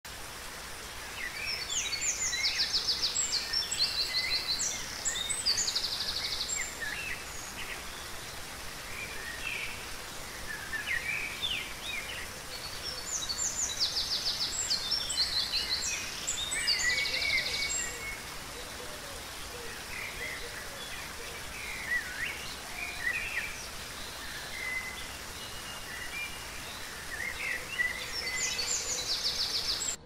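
Small rocky waterfall with a steady rush of water. Songbirds sing over it with high chirps and fast trills, loudest in two long spells and again near the end.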